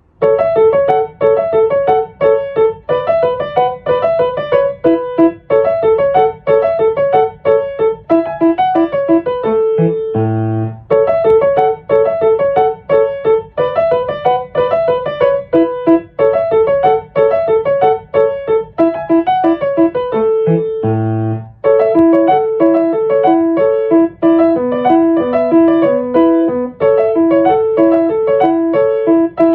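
Background music: a bright, rhythmic piano or electric-piano tune of quick repeated notes.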